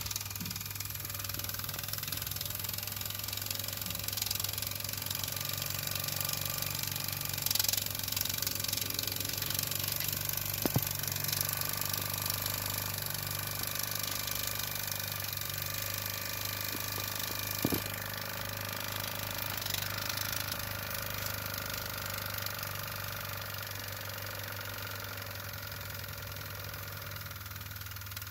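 Mamod MM1 toy steam engine running steadily, its small oscillating cylinder chuffing under a continuous steam hiss. Two sharp clicks are heard, one in the middle and one about two-thirds of the way through.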